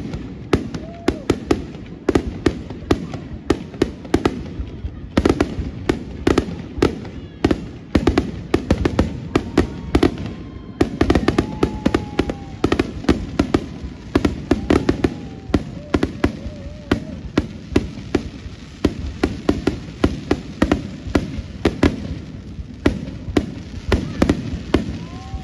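Fireworks going off in a continuous, irregular barrage of sharp bangs and pops, several a second, with a few short whistling tones among them.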